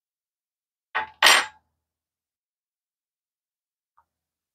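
A glass bowl scraping briefly against a stone tabletop as it is picked up, two short scrapes about a second in.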